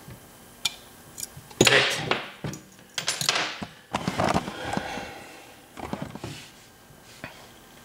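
Small metallic clicks and scrapes of lock picks and a tension wrench in a 6-pin Yale drawer lock as the picked plug is turned, mixed with a few louder handling noises.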